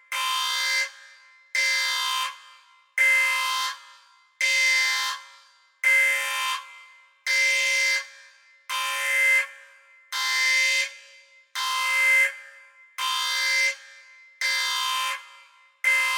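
Sci-fi spaceship alarm sound effect: an electronic alarm tone at a steady pitch, sounding about every second and a half, each blast under a second long and fading away at its end.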